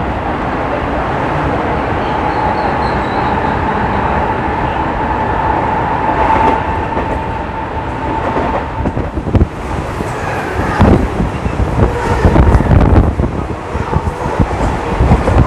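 Mumbai local electric train running at speed: a steady rumble with a high whine, growing heavier in the second half with irregular knocks and rattles.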